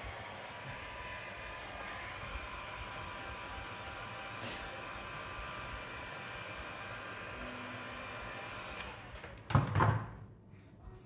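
A hot-air blower runs with a steady whir and switches off near the end. About a second later there are a couple of loud knocks.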